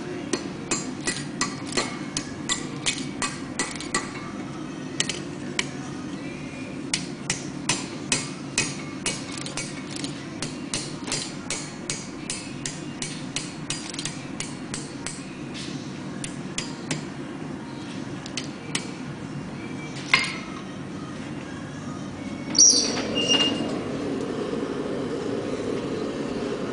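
Blacksmith's hand hammer striking hot steel on an anvil: a long run of sharp, ringing blows about three a second, with a few short pauses, flattening the bar. Near the end come two louder metal clanks over a steady low rush.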